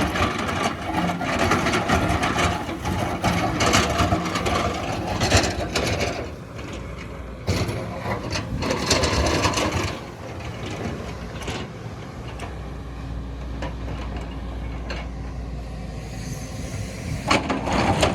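Excavator's diesel engine running under load, with rough scraping and knocks of digging through the first six seconds. The sound then settles to a quieter, steady low engine hum, broken by a sharp knock now and then.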